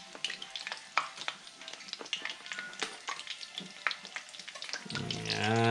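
Strips of bitso-bitso dough deep-frying in a pan of hot oil, sizzling with a constant run of small crackles and pops. A short, low hum near the end is the loudest sound.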